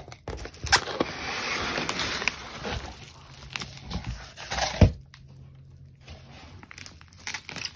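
A parcel being opened by hand: packaging rustling and tearing for a couple of seconds, with a few sharp snaps, the loudest a little under five seconds in, then quieter handling.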